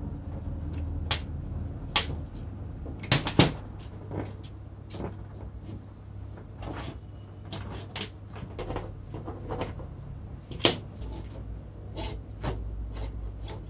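Handling noise from the parts of a vintage Black and Decker reciprocating saw's motor: the field coil, wiring and switch are moved and set down, giving scattered clicks and knocks over a low steady hum. The loudest are a quick double knock about three seconds in and another knock near eleven seconds.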